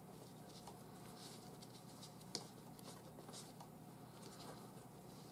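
Faint scratchy rustling of paracord strands sliding and rubbing together as a bracelet knot is pulled tight, with one slightly louder tick about two and a half seconds in.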